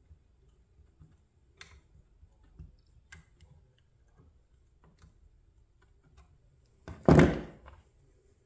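Light clicks and taps of a small hand tool and parts being worked on a scale model crane, then about seven seconds in a single much louder thump.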